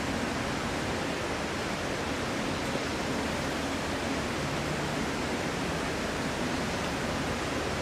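Steady, even hiss of background room noise with no speech, a faint low hum underneath.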